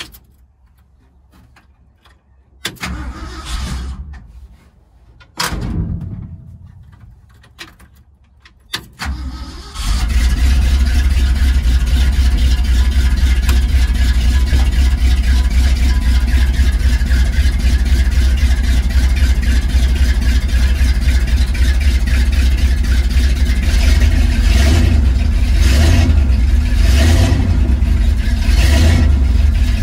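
Classic Ford pickup truck engine being cranked in three short tries; it catches on the third, about ten seconds in, and then runs steadily.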